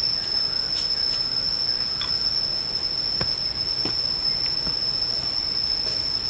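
A steady, high-pitched insect whine from the forest, one unbroken tone. A few soft footfalls on the dirt steps come through faintly around the middle.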